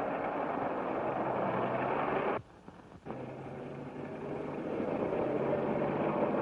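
Motor vehicle engine running with a steady, noisy drone. The sound cuts out almost completely for about half a second, roughly two and a half seconds in, then resumes.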